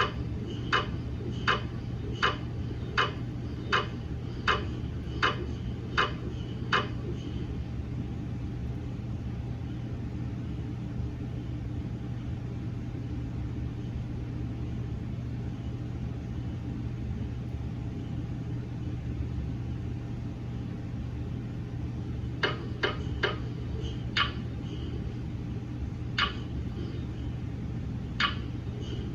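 GE MRI scanner's gradient coils knocking during a daily quality-assurance phantom scan. A sharp knock comes about every three-quarters of a second for the first seven seconds, then there is only a steady low hum, and a few irregular knocks return in the last seven seconds.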